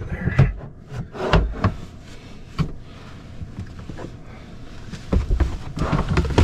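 Camp grill and plastic storage totes being shifted and rummaged through: scattered knocks, clunks and scrapes of hard plastic, with a busier run of knocks near the end.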